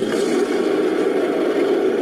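Genderuwo creature sound effect: a rough, gravelly monster growl-roar, made from mixed animal and monster roars, that cuts in abruptly and holds steady without a clear pitch.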